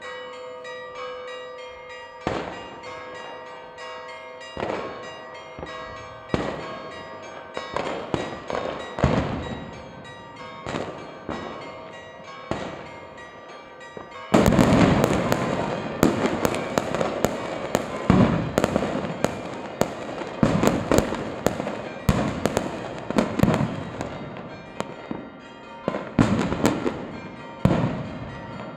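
Fireworks and firecrackers banging. The bangs come every second or two at first, then turn into a loud, dense barrage about halfway through. Church bells ring steadily beneath the first half.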